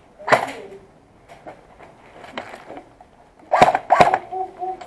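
Airsoft gun firing single shots as sharp cracks: one just after the start, then two about half a second apart near the end.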